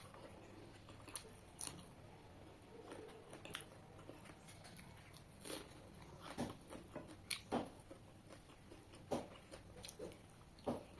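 A person chewing and biting food close to the microphone, with irregular short smacks and clicks.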